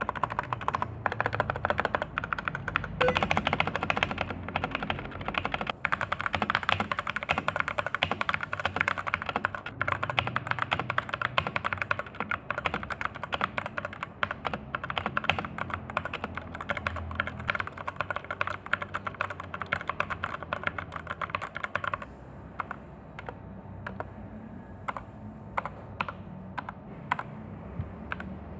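Fast, continuous typing on a stock, unmodded Rexus Daiva RX-D68 mechanical keyboard; about two-thirds of the way through it thins out to slower, separate keystrokes.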